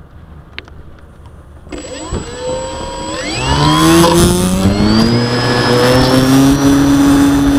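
Electric motor and propeller of a Parkzone Sport Cub RC plane, heard from onboard. After a few light clicks, the motor starts about a second and a half in, its pitch rising over two seconds as it throttles up for launch, then running steady at high throttle with a thin high whine above the propeller note.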